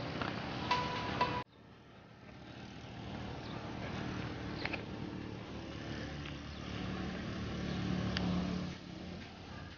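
A motor vehicle engine running, growing louder over several seconds and dropping off near the end. Its sound begins after an abrupt cut about a second and a half in.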